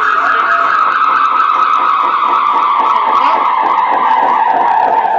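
A storm sound effect: a loud, steady rushing noise with a whining tone that slowly falls in pitch.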